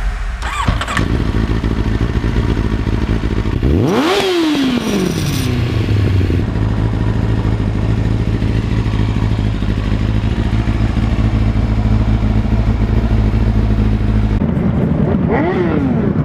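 1999 Kawasaki ZX-9R's inline-four engine running: revved up once and back down about four seconds in, then running steadily, with a few more short revs near the end.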